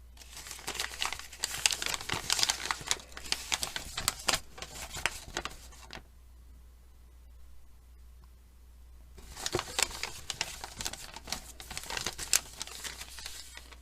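Sheet of paper being handled, folded and crumpled, crackling and crinkling for about six seconds, pausing for about three, then crackling again.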